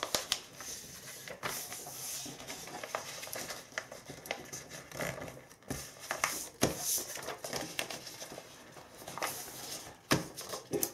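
A sheet of paper being folded quickly by hand into a paper airplane on a wooden tabletop: irregular rustling and crinkling, with short sharp swipes and taps as the creases are pressed down.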